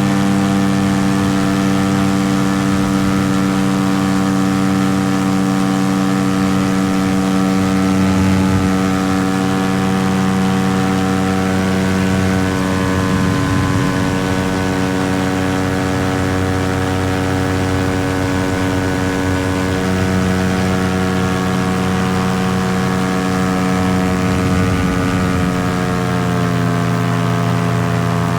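Paramotor engine and propeller running steadily in flight, with a rush of air over it; the engine note steps down slightly near the end.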